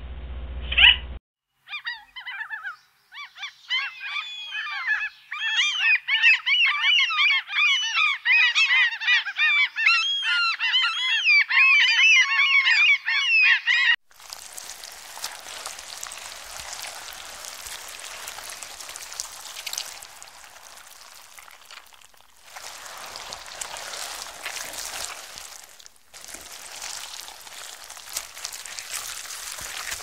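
A flock of birds calling, many shrill, up-and-down calls overlapping in a dense chatter. About fourteen seconds in, the chatter gives way to a steady outdoor hiss that drops out and comes back a few times.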